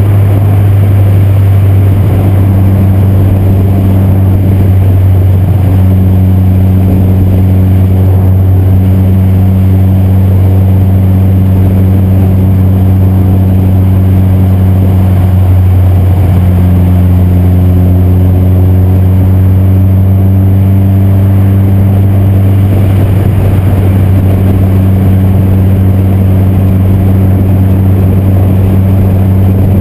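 Honda Fit's naturally aspirated K24 four-cylinder engine cruising at steady highway speed: a loud, steady low drone of engine and exhaust whose pitch barely changes, over road noise.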